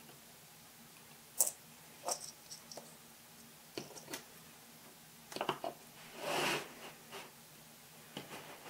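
Scattered small clicks and taps of hobby tools at a modelling bench, with a short scraping sound about six seconds in.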